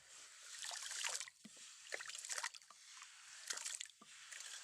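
Faint sloshing and trickling of water and wet sand as the sand truck is cleaned out, with small irregular splashes and gritty scrapes.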